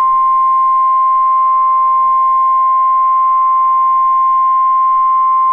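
NOAA Weather Radio 1050 Hz warning alarm tone: a single loud, steady, high-pitched beep held without a break. It is the alert that announces a warning broadcast is about to follow.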